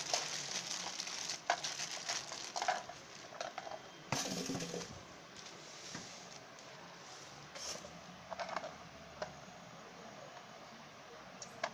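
Plastic bag crinkling and rustling as a sewing-machine foot pedal and its cord are unwrapped, with scattered clicks and knocks of handling. It is busiest in the first few seconds, then thins out to occasional light taps.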